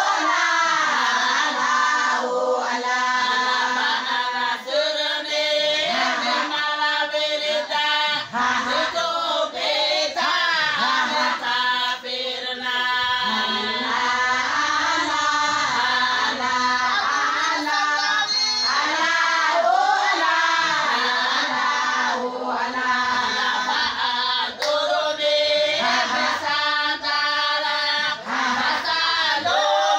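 A group of women singing a Somali Bantu song together, the voices running on without a break.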